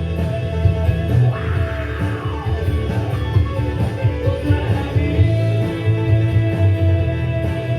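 Background rock-style music with guitar and a singing voice.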